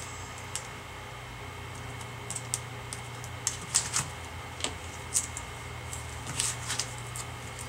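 Light, irregular clicks and taps of plastic and metal as hands handle a replacement laptop LED screen panel and line up its ribbon-cable connector, over a steady low hum.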